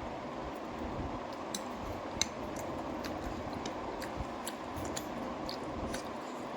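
Eating pasta: scattered small sharp clicks and wet mouth sounds of chewing, the sharpest about two seconds in, over a steady background rumble.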